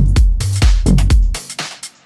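Electronic dance music with a steady kick-drum beat about twice a second; about one and a half seconds in the bass drops out and the music fades, leaving quieter repeating ticks.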